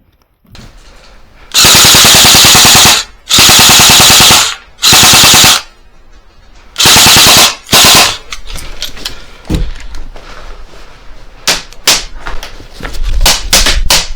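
Airsoft gun firing on full auto in five rapid-fire bursts, four long and one short, very loud and distorted. Afterwards come scattered sharp clicks and knocks.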